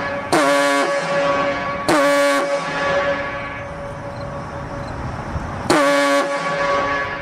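Diaphone foghorn sounding three short, loud blasts, the third after a longer gap. Each blast slides briefly into a low steady note, and a higher tone lingers between blasts.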